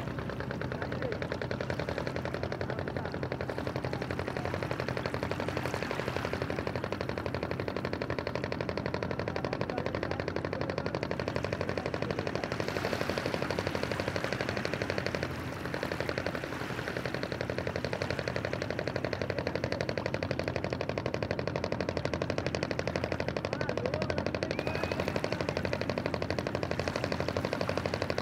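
A boat engine running with a very fast, steady pulse, dipping briefly about halfway through.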